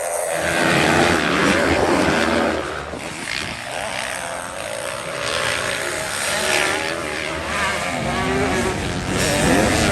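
Motocross dirt bike engines revving hard on the track, their pitch repeatedly climbing and dropping as the riders accelerate and shift.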